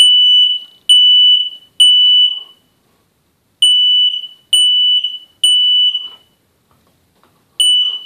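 Ceiling-mounted smoke alarm sounding in test mode, its test button held in with a pole. Loud high-pitched beeps in the three-beep evacuation pattern: two full groups of three with a pause between, and a third group starting near the end.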